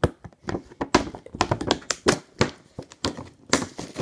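Cardboard box being handled and opened by hand: a quick, irregular run of taps, knocks and scrapes, several a second.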